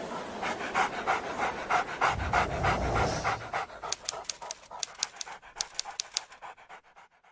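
A dog panting quickly and evenly, about five breaths a second, growing fainter and stopping near the end.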